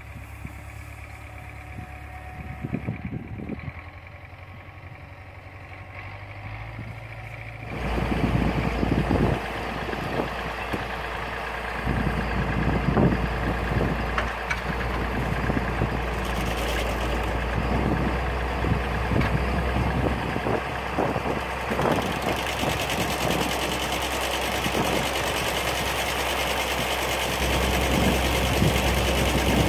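Tractor diesel engine running steadily, with no speech over it. The sound gets louder and fuller about eight seconds in.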